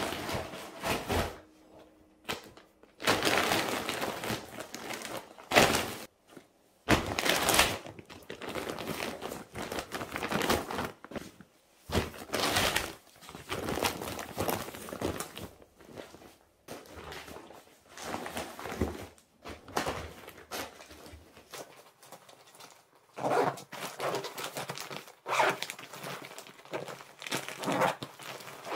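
Clear plastic IKEA PÄRKLA storage case rustling and crinkling as a duvet is pushed and pressed down into it, with soft thunks, in irregular bursts with short pauses. The case's zip is pulled closed near the end.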